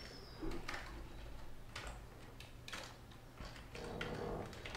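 A few faint, scattered computer keyboard keystrokes and clicks, spaced about a second apart, over a low steady hum.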